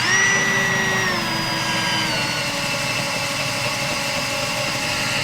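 Electric power tool motor running with a steady high whine, dropping slightly in pitch about a second in and again about two seconds in.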